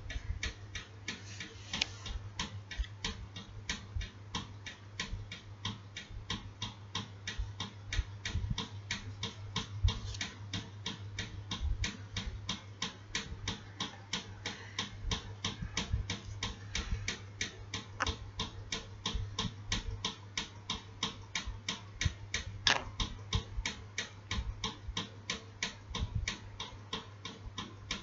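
Steady, even ticking, about three ticks a second, over a faint low hum.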